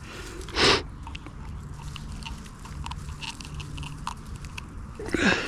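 Small, scattered clicks and crackles from pliers working a hook out of a small catfish's mouth, with a short rush of noise under a second in.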